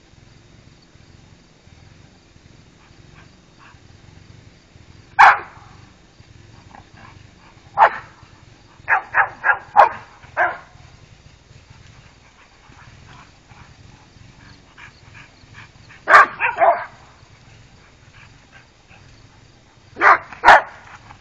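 Dogs barking in play, in short groups: single barks, then a quick run of about five, a cluster of three, and a final pair.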